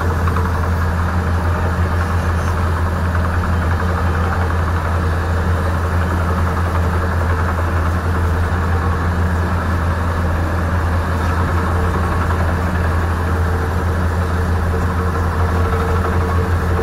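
Heavy machinery engine running steadily: a loud, even, low drone that does not change.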